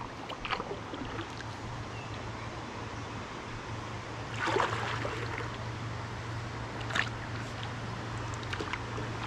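River water running and trickling steadily, with a few brief splashes, the loudest about four and a half and seven seconds in.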